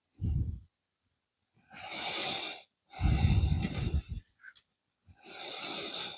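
A person breathing close to the microphone: three long breaths, two of them with low thumps of air hitting the mic.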